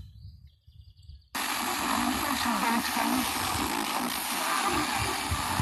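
FM radio receiver stepping between stations: it goes nearly silent for about a second, then a weak station comes in under heavy static hiss with faint programme sound beneath it.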